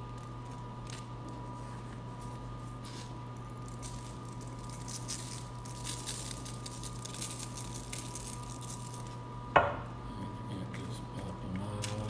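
Everything seasoning shaken from a jar onto unbaked dough buns: a soft rustling patter of seeds for a few seconds, ending in one sharp knock, the loudest sound. A steady low hum runs underneath.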